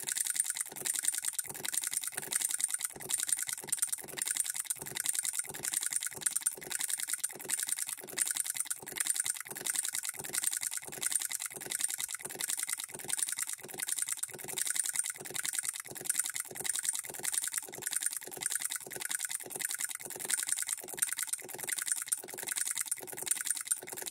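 Hand-built hit-and-miss solenoid model engine running with a steady rapid clicking as its solenoid fires and the mechanism clatters. Its supply voltage is being turned down, so it sometimes fires twice in a row before the flyball governor throws out and it misses.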